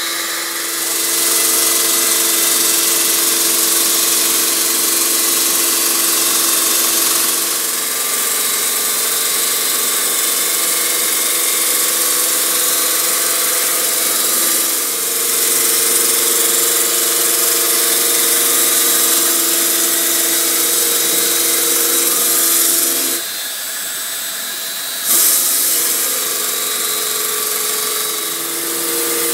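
CNC stone-cutting machine working Yorkstone: a steady whine of several held tones over a loud hiss. The pitch shifts a few times as it cuts, and the sound drops away for about two seconds near the end before picking up again.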